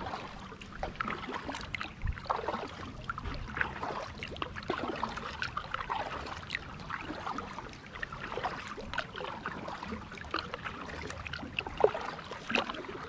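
Small water sounds around a kayak on calm lake water: irregular trickling and dripping along the hull, with one sharper tap near the end.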